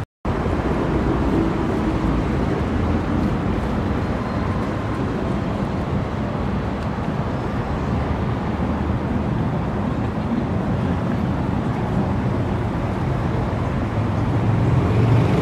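City street ambience: a steady hum of road traffic, growing a little louder near the end.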